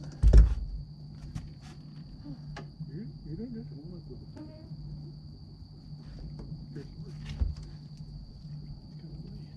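Night insects keeping up a steady, high-pitched chorus over a low steady hum. A heavy thump comes about half a second in and a lighter one near the end, with a few faint clicks.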